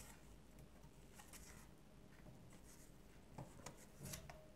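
Faint taps and scrapes of a cardboard strip's edge pressed onto paper, printing lines of gouache, with a few of them late on. Otherwise near silence.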